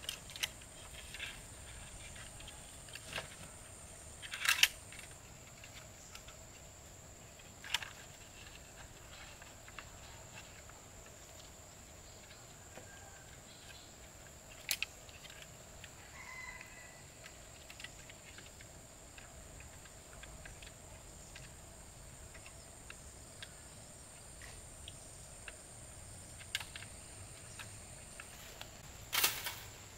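Forest ambience with a steady high-pitched insect drone, broken by a few sharp knocks, the loudest about four and a half seconds in and another near the end, and a short bird chirp about halfway through.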